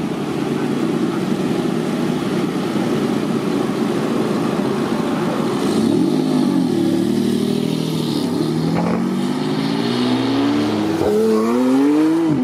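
Lamborghini Diablo's V12 engine rumbling at low revs as the car pulls out, then accelerating hard with the revs climbing several times in a row in the second half.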